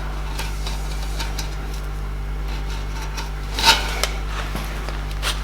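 Light metallic clinks and handling noises of steel welding rods against the metal workpiece while the hole outline is marked, the loudest a little past halfway, over a steady low hum.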